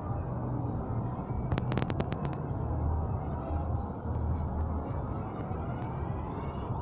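Indoor shopping-mall hubbub with a steady low hum, and a quick run of about eight sharp clicks about a second and a half in.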